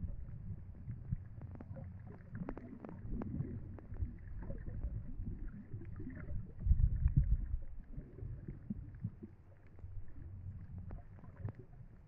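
Muffled underwater sound: a low rumble of water moving around the submerged camera, with scattered faint clicks. It swells loudest for about a second just past the middle.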